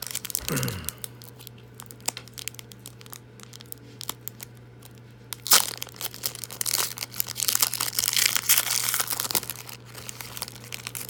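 Wrapper of a trading-card pack being torn open and crinkled by hand, with a sharp rip about five and a half seconds in and a run of crackling after it.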